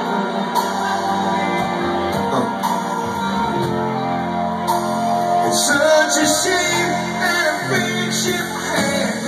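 Live rock band playing in a club hall, with a singer singing over drums and guitar.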